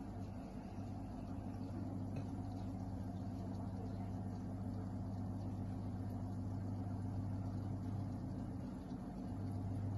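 Steady low electric hum of running aquarium equipment, such as the tank's water pump, briefly weakening about nine seconds in.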